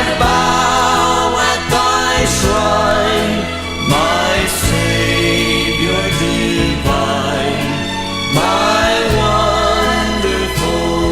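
Gospel vocal group singing a slow hymn-like song with band accompaniment: held, wavering sung notes over a steady bass line.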